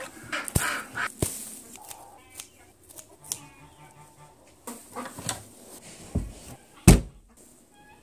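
Barnyard ducks quacking and honking in short calls, mixed with knocks and handling noise, and one loud thump about seven seconds in.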